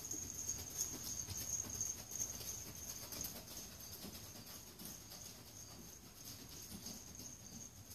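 A horse's hoofbeats on soft arena dirt as it goes past and away, loudest in the first few seconds and fading after. Under them runs a steady high-pitched drone.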